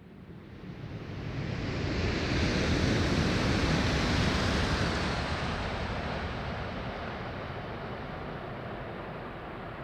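ALFA-X (E956) test Shinkansen passing at high speed: a rushing noise that swells to its loudest about three seconds in, then slowly dies away as the train recedes.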